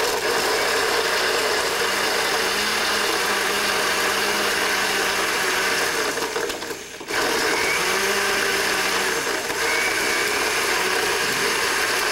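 Countertop blender running, blending a frozen drink. It stops for under a second a little past halfway and starts again.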